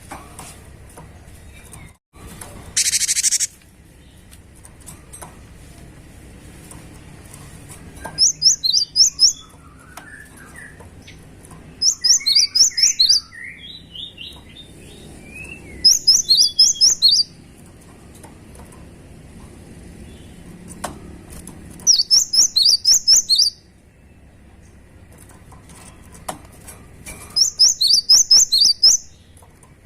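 Cinereous tit (gelatik batu) singing: five bursts of quick, short, high repeated notes, each lasting about a second and a half and coming every four to six seconds, with softer lower chirps between the first bursts. A brief loud hiss about three seconds in.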